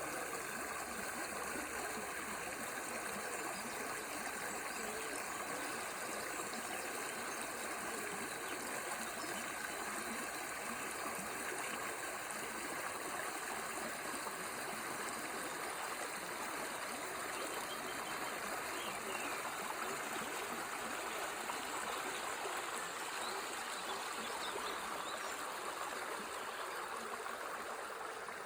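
Ward River flowing steadily, a continuous rush and trickle of water, with a few faint bird chirps in the second half.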